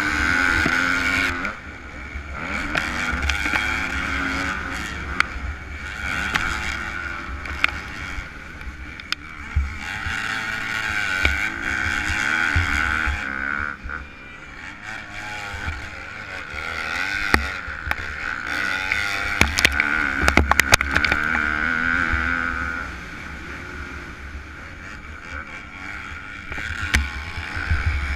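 2015 Kawasaki KX250F single-cylinder four-stroke motocross engine racing, revving hard down the straights and dropping off into the corners, heard on board with wind noise. A few short knocks come about two-thirds of the way through.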